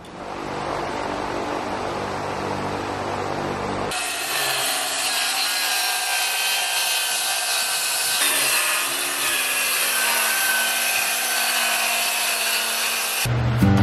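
Circular saw running along a guide rail and cutting through a plywood sheet. A lower-pitched motor sound gives way about four seconds in to a louder, higher, hissing cutting noise with a thin whine in it, which stops abruptly near the end.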